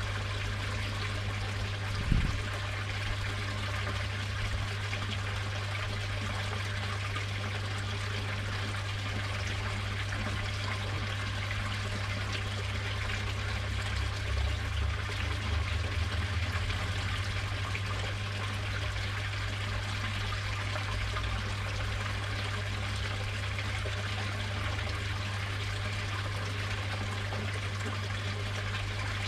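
Steady running, trickling water in a koi pond, under a constant low hum. A single brief thump about two seconds in.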